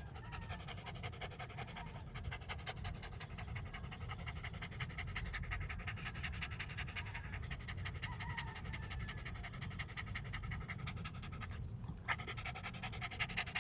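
Dogs panting hard and fast, out of breath after exertion, with a brief break near the end.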